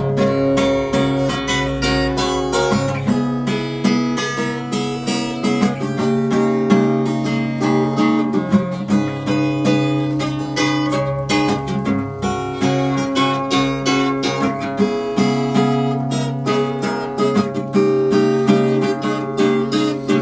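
Acoustic guitar strummed and picked in a steady rhythm, playing an instrumental break between sung verses of a chanson song.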